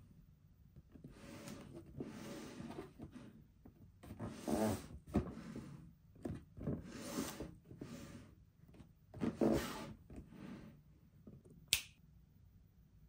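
Cardboard toy box being handled and turned over: a run of irregular rubbing and scraping noises, then a single sharp click near the end.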